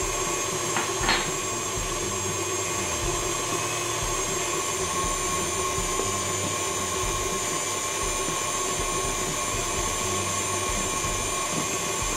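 Electric tilt-head stand mixer running steadily at speed, its wire whisk beating egg whites in a stainless steel bowl, with a constant motor whine. Two short light clicks come about a second in.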